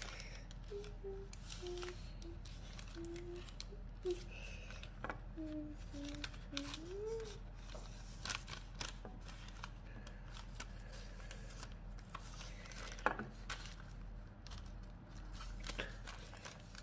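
Someone softly humming a tune through the first seven seconds or so, over light rustling and tapping as hands press cookie dough onto parchment paper on a baking tray. There is a sharper tap about 13 seconds in.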